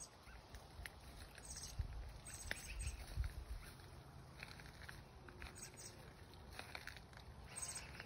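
Quiet outdoor ambience: a low rumble with scattered faint, short bird chirps.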